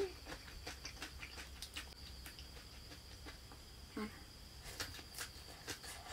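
A person chewing crisp battered fried bitter melon: a steady run of small, sharp crunches and mouth clicks, with a short hum from the eater about four seconds in.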